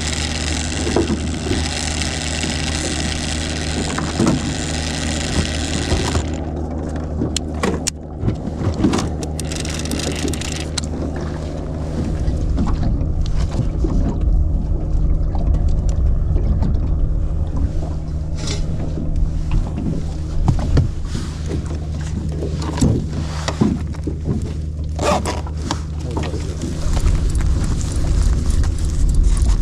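Fishing boat's engine running with a steady low hum and scattered knocks. A high hiss drops away about six seconds in, and the low rumble grows louder about twelve seconds in.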